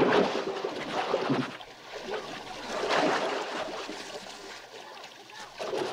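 Water splashing and churning in rough surges as a tiger and a man thrash in a lake, loudest near the start, about three seconds in, and again near the end.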